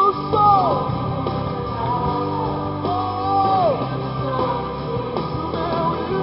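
Contemporary worship band music with no lyrics. A lead melody line plays in phrases, each one sliding down in pitch at its end, over a steady band backing.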